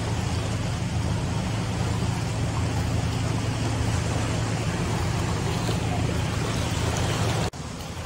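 Steady rush of wind buffeting the microphone over small waves lapping at the shoreline, with a heavy low rumble; it drops off abruptly near the end.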